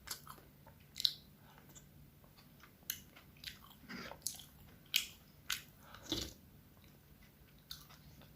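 A person eating: quiet chewing with about a dozen short, scattered mouth smacks and clicks.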